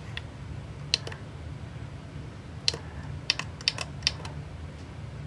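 Sharp key clicks, about ten in all: one near the start, a pair about a second in, then a quick run of taps, as jog keys are pressed to step the CNC mill's axis in small increments toward the probe's zero. A steady low hum runs underneath.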